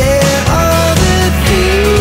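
Background rock music: drums and bass under a gliding melody line.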